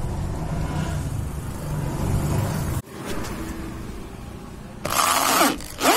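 Electric drill run in two short bursts about five and six seconds in, its motor whine gliding up and down in pitch. Before that, a low steady rumble that drops away abruptly about three seconds in.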